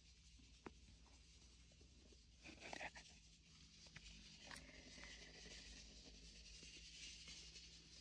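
Near silence with faint rustling of cat fur against a hand and a bare leg as the cat is stroked and rubs past. There are a few soft clicks and a short, scratchier rustle about two and a half seconds in.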